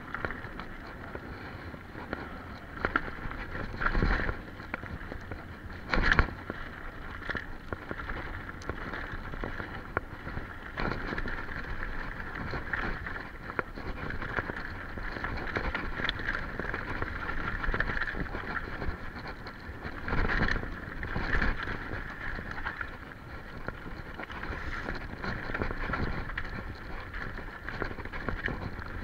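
Mountain bike descending a rough dirt and rock singletrack: a steady rush of tyre and trail noise with the bike rattling, broken by sudden loud jolts as it hits bumps, the biggest about 4 and 6 seconds in and again around 20 seconds in.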